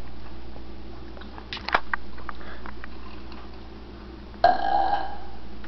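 A few light clicks and taps, then about four and a half seconds in a sudden breathy burp that fades out over about a second.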